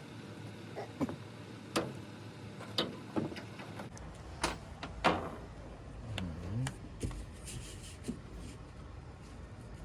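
Scattered sharp clicks and knocks, about a dozen spread irregularly, from a plastic fastener being worked into a mounting hole on a swing case toolbox.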